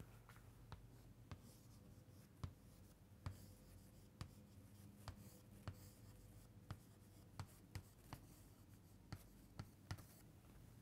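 Chalk writing on a chalkboard: irregular, sharp taps of the chalk striking the board, roughly one or two a second, with faint scraping between them.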